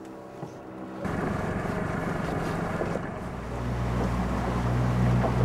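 Small motorboat's engine running, with wind on the microphone and water hiss; the engine grows louder about three seconds in as the throttle is opened to get under way.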